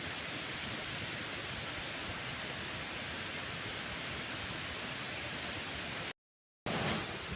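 A steady rushing noise, even and without distinct events. It breaks off into dead silence for about half a second about six seconds in, then resumes slightly louder.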